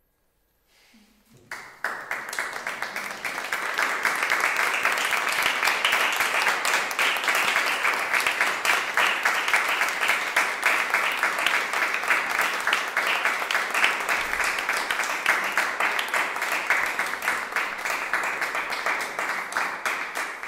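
Audience applauding, breaking in suddenly out of silence about a second and a half in and holding steady as many hands clap at once.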